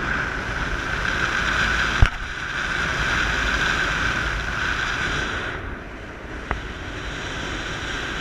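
Wind rushing over the camera microphone in paraglider flight, a steady rushing noise that eases for a moment a little before the six-second mark. A single sharp knock about two seconds in, and a faint click soon after the rush eases.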